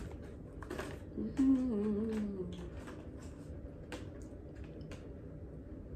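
A woman hums a short wavering "mmm" for about a second, with scattered light clicks and rustles of a cardboard candy box and wrappers being handled.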